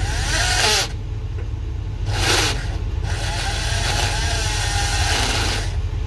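Handheld power tool working at a hole in the steel forklift door: a short run, a brief burst, then a longer run from about three seconds in. A steady low engine rumble sits underneath.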